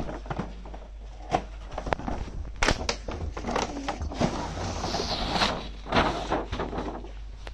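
Cardboard toy box with a clear plastic window being handled and shifted: scattered knocks and clicks, with rustling through the middle.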